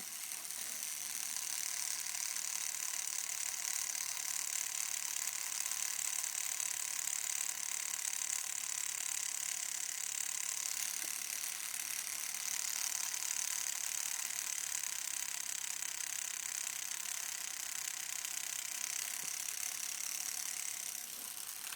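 Homemade battery-powered tattoo machine running steadily with a fast mechanical whir, cutting off right at the end.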